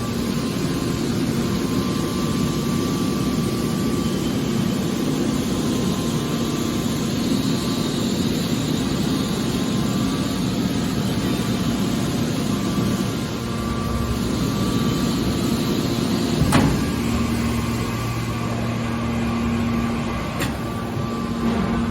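Hydraulic aluminium can baler running, its hydraulic pump unit making a steady mechanical hum, with one sharp clank about three quarters of the way through.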